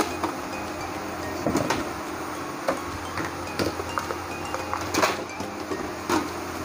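Mixer-grinder jars and lids handled on a wooden table: a handful of short knocks and clicks, spread over a few seconds, as the plastic jar is lifted off the base and the stainless-steel jars are moved. A steady low hum runs underneath.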